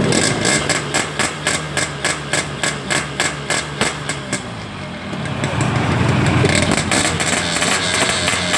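Yamaha RX-King's single-cylinder two-stroke engine running, with a regular pulsing about four times a second at first, then revved up louder about five and a half seconds in.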